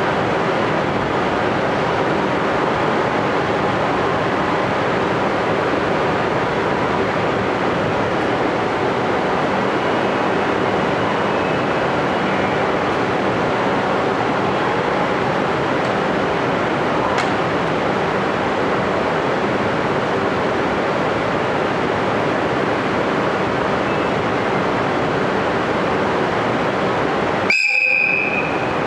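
ED75 electric locomotive standing at a station platform with a steady hum and hiss. Near the end it gives one short, high whistle blast, its signal for departure.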